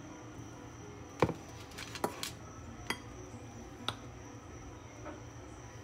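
Metal spoon clinking against a ceramic bowl while stirring barbecue sauce: five or six sharp clinks spaced irregularly, the loudest about a second in, over a low steady hum.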